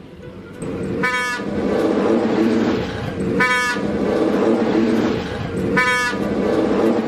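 Train horn blaring a steady, held chord that starts about half a second in, over a rushing noise. Three short high-pitched cries cut in, about two and a half seconds apart.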